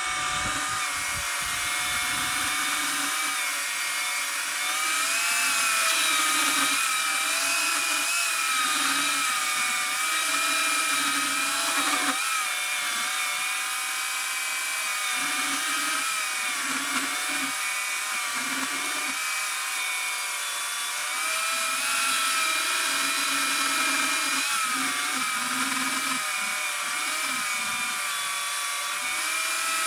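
Oregon CS1500 electric chainsaw with a 15-amp motor running steadily as it cuts through a seasoned 24-inch log, its whine wavering slightly in pitch as the chain bites.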